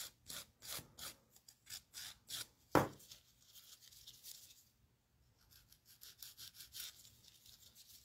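Coarse side of a medium/coarse hand nail file scraping back and forth over sculpted acrylic in quick short strokes, about three a second, working into the crevices of the shape. A single sharp knock about three seconds in; after a short pause the strokes come faster and fainter.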